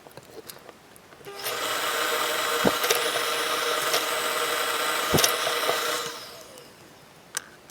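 A small electric motor runs steadily for about four and a half seconds with a whine and a few sharp clicks, then winds down.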